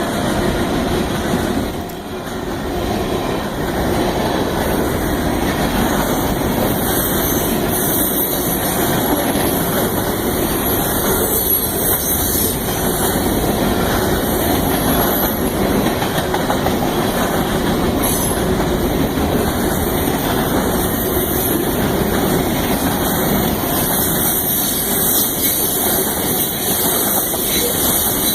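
Union Pacific freight train rolling past, its cars' wheels running steadily on the rails. The level dips briefly about two seconds in.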